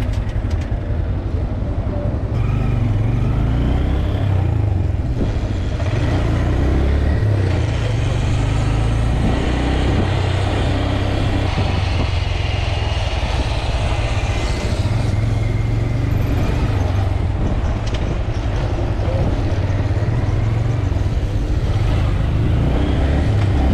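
Motorcycle engine running as the bike pulls away and rides through city traffic, its pitch rising as it accelerates a few seconds in.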